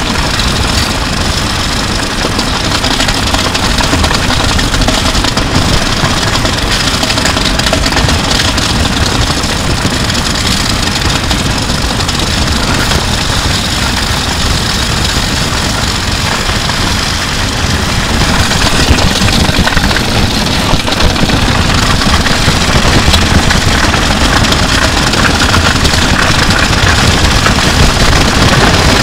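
Drums and electric and bass guitars being dragged on ropes along wet asphalt, giving a steady, harsh scraping noise picked up through the guitars' line feeds and an overhead mic on the drums. It grows a little louder after the middle.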